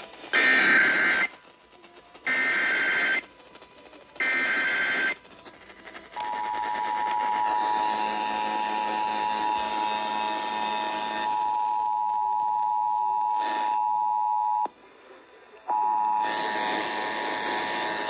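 Emergency Alert System signal playing through a portable emergency radio's speaker. It opens with three one-second bursts of SAME header data, then the EAS two-tone attention signal (853 and 960 Hz) sounds steadily; the tone breaks off for about a second near the end and comes back. This is the header and attention tone that open a Required Monthly Test alert.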